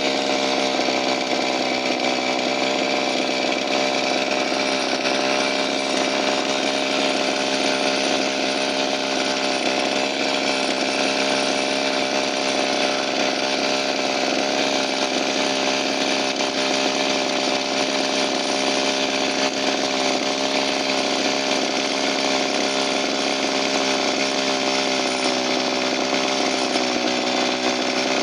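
Small two-stroke engine running steadily at a fast, even speed with the choke off: a buzzing drone whose pitch stays constant throughout.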